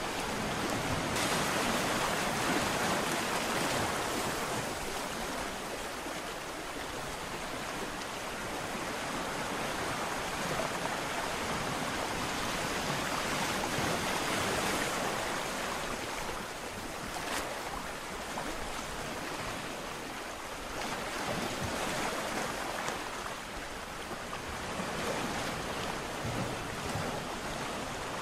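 Ocean surf: waves breaking and washing up the shore, a continuous rushing that swells and eases every few seconds.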